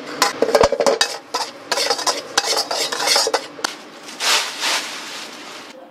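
A spatula scrapes and clinks against a pan, stirring freshly toasted salt with Sichuan peppercorns and chili powder. The sound is a run of quick clicks and scrapes, then a longer swishing scrape about four seconds in.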